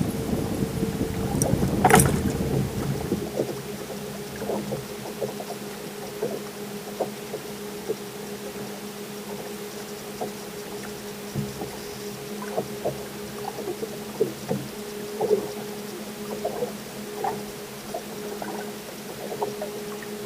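Fishing boat on the water with a steady motor hum. A low rumble fades about three seconds in, there is a sharp knock about two seconds in, and scattered short taps follow.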